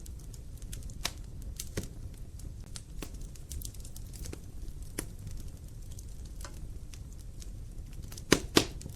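Wood logs burning in a fireplace: a low steady rumble with scattered sharp crackles every second or so, and two loud pops in quick succession near the end.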